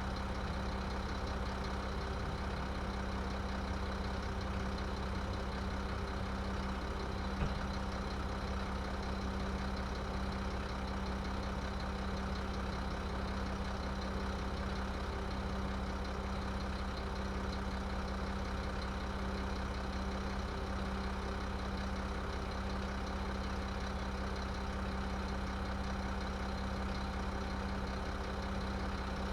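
Garbage truck engine idling steadily, with a constant low hum. One short click about seven seconds in.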